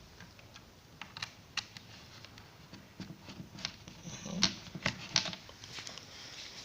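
Irregular light clicks and rustling from a camcorder and its power adapter cable being handled while the adapter plug is pushed into the camcorder, the clicks bunching together past the middle.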